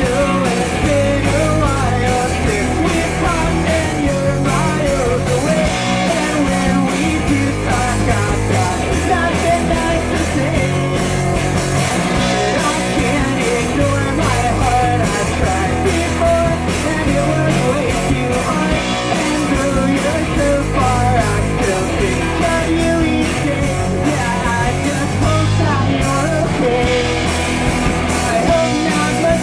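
Live rock band playing: electric guitar, bass and drum kit, with a singer's voice riding over them at a steady loud level.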